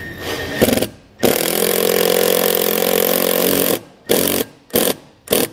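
Milwaukee cordless impact driver running a screw through a ladder bracket into an RV wall: a short burst, then a steady run of about two and a half seconds, then three short blips near the end as the screw is snugged down.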